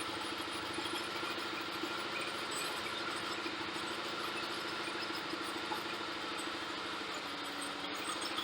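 Ford Crown Victoria P71's 4.6-litre V8 idling steadily with its air intake and MAF sensor removed.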